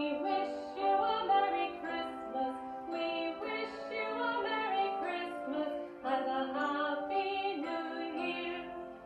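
Music with singing: a Christmas song sung over an instrumental backing, the melody running continuously.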